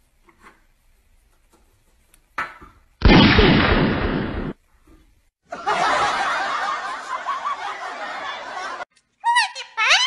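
A loud bang about three seconds in that dies away over a second and a half, the cue for a parrot's play-dead trick with a toy revolver, followed by laughter for about three seconds. Near the end a parrot calls with quick gliding pitch.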